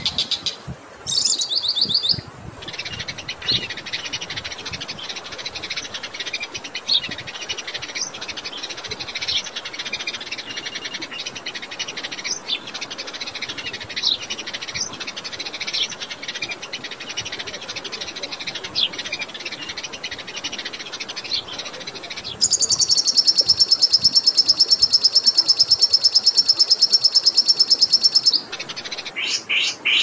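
Mixed songbird song of the kind played as masteran to tutor competition birds: dense, high chattering and chipping notes, then about two-thirds of the way in a loud, very rapid, even trill that lasts about six seconds and stops, followed by a few sharp notes. Running water murmurs underneath.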